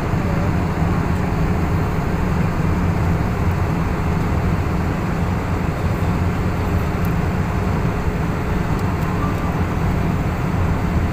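Airbus A320neo cabin noise in flight, heard inside the cabin at a window seat: a steady low rumble of engines and airflow with an even hiss above it, during the descent.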